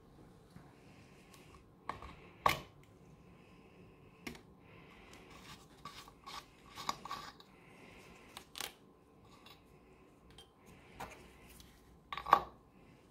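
Sheet-metal parts of a toy steam engine handled by gloved hands: a run of light metal clicks and clinks as the turbine and chimney are lifted off and the boiler can's screw cap is twisted off, with scraping and rubbing of tinplate between them. Two sharper clinks stand out, about two and a half seconds in and near the end.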